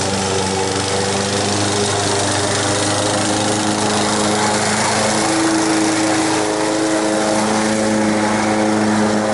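Honda walk-behind lawn mower's single-cylinder four-stroke engine running steadily as it is pushed through tall grass, its pitch shifting a little about halfway through. It is running with the choke on, which the owner puts down to dirt in the carburetor jet.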